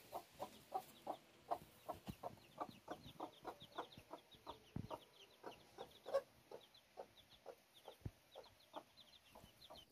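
Broody mother hen clucking softly and steadily to her chicks, about three short clucks a second, with the chicks' high peeps over it.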